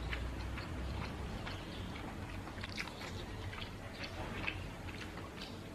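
A person chewing food close to the microphone: soft, wet mouth clicks scattered irregularly throughout, over a low steady hum.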